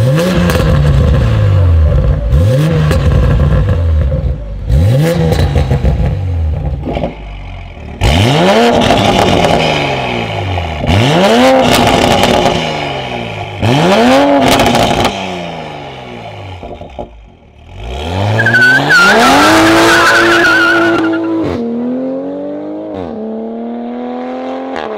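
2020 Toyota Supra GR 3.0T's turbocharged inline-six revved through a Tneer full exhaust system. There are three short blips, then three longer revs, then one rev held high for about three seconds before the engine note drops back down in steps.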